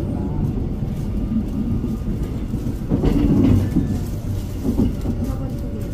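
Seoul Subway Line 2 electric train running, heard from inside the passenger car: a steady low rumble of wheels on rail that swells louder about three seconds in.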